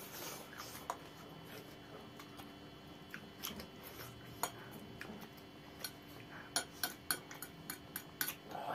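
Metal forks clinking and scraping against ceramic plates as noodles are twirled and lifted: scattered sharp clicks, coming more often in the last few seconds.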